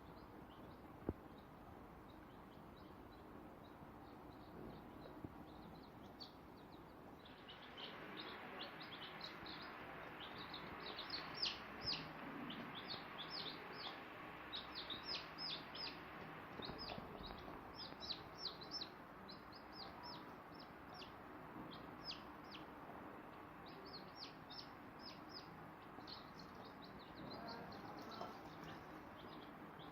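Day-old chicks peeping: many short, high cheeps that sweep downward in pitch, sparse at first and then a dense chorus from about seven seconds in. A single sharp click about a second in.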